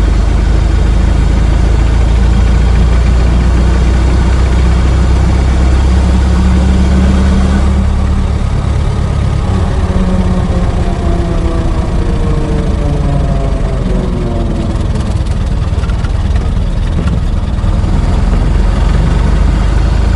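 Old car engine running while driving, a steady low rumble. About eight seconds in the engine note eases and a few falling tones follow as it slows down.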